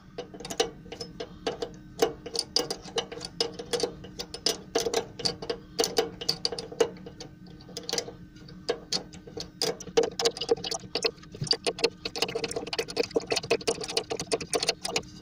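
A small metal spanner turning the row of little nuts on a planer cutterhead's blade-locking bar: a quick, irregular run of metal clicks and ticks.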